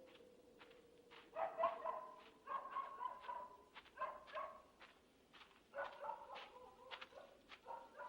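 A dog whining and yelping in short, faint calls, in several groups, over a thin steady tone.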